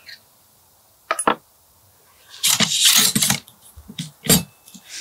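Bolt of a Wilson Combat NULA Model 20 .308 bolt-action rifle being worked: a pair of sharp metallic clicks about a second in, a second-long sliding rattle around the middle, then another sharp click near the end.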